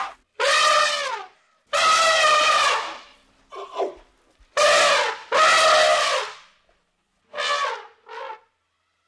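African elephant trumpeting: a string of loud calls, each about half a second to a second long, with short gaps between them. The pitch drops at the end of each call, and the last few calls are shorter.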